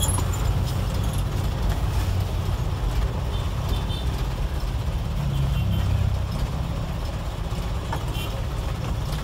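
Engine of an old 1990s Mitsubishi diesel medium bus running under way, heard from inside the passenger cabin. It is a steady low drone mixed with road noise, swelling slightly about five seconds in.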